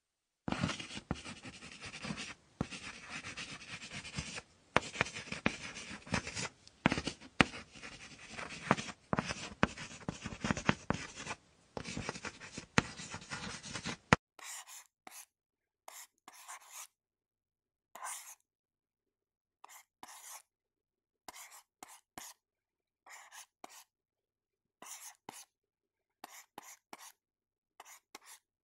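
Writing on paper, the tip scratching across the page: continuous scratchy strokes for about fourteen seconds, then separate short strokes with pauses between them, about one or two a second.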